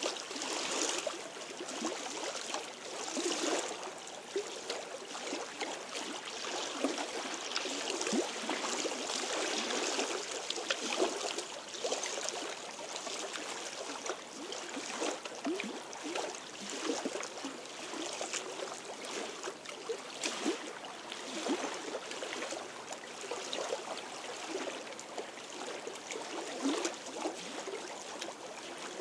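Small lake waves lapping against stones at the shoreline, a continuous run of irregular little splashes and gurgles.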